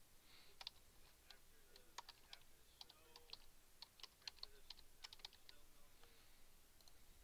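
Faint typing on a computer keyboard: a run of irregular keystroke clicks.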